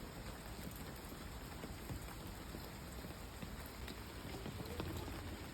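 Steady light rain falling, with scattered drops ticking.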